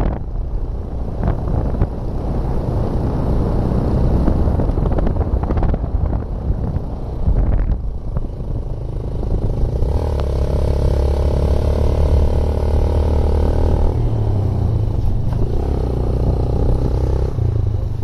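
A motor vehicle driving along, heard from on board: engine rumble mixed with road and wind noise. A steadier engine hum holds for a few seconds about ten seconds in, and again near the end.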